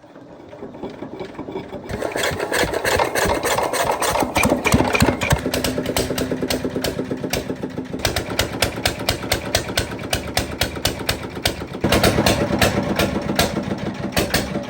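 Restored generator's engine running with a steady, rhythmic clatter. It builds up over the first couple of seconds and gets louder again near the end.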